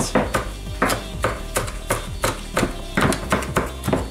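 Kitchen knife chopping fresh sage, thyme and rosemary on a wooden cutting board: a steady run of sharp chops, about three a second.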